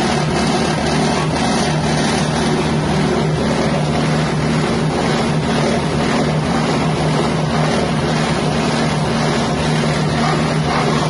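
Engine-driven wet spice grinding machine running steadily under its 6.5 hp engine, a loud continuous mechanical drone with a steady low hum.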